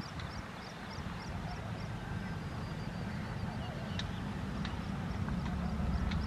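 Low rumble of an approaching electric-hauled passenger train, growing steadily louder, with repeated high chirps about three a second above it at the start and again near the end.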